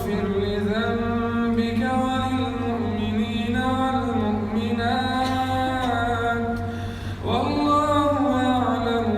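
A man's voice reciting the Quran in slow melodic tajweed style, holding long drawn-out notes that glide up and down in pitch. He pauses for breath about seven seconds in, then resumes. A steady low hum runs underneath.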